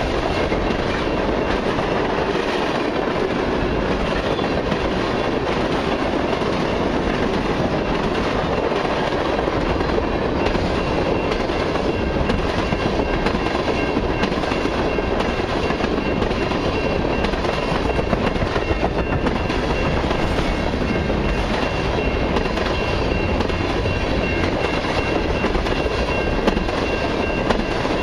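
Freight cars of a long mixed and autorack train rolling steadily past, with wheels rumbling and clattering on the rails and a faint high steady tone over the noise.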